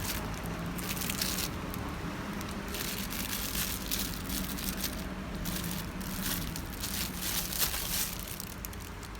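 Irregular crinkling and rustling of plastic being handled, coming and going in short patches, over a faint steady low hum.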